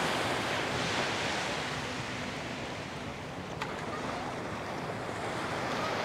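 Small waves breaking and washing up the beach in a steady rush of surf.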